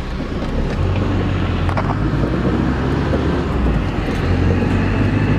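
Car driving slowly, heard from inside the cabin: a steady low engine and tyre rumble whose pitch shifts a little a couple of times, with a brief click about two seconds in.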